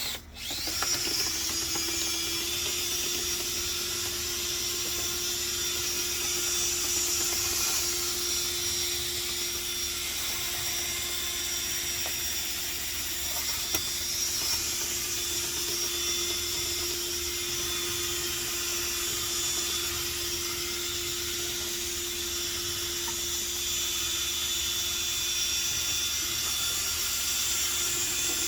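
Power drill running steadily at one speed with a constant whine, starting about half a second in.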